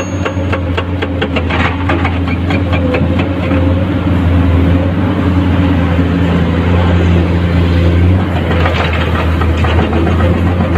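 Komatsu PC210-10 excavator's diesel engine running steadily under hydraulic working load, its pitch shifting slightly about eight seconds in, with short clicks and rattles of limestone in the first few seconds.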